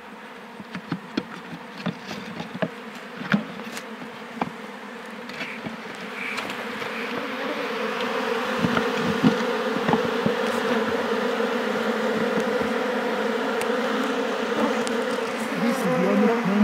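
Colony of African honeybees buzzing inside an opened wooden top-bar hive, the hum growing much louder about six to eight seconds in and then holding steady as the bees are disturbed. In the first few seconds there are sharp wooden knocks and clicks as the hive bars are handled.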